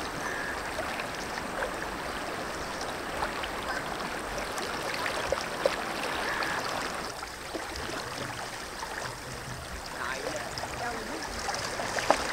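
River water flowing and rippling around rocks, a steady rush, with a few light clicks and taps, one sharper about halfway and another near the end.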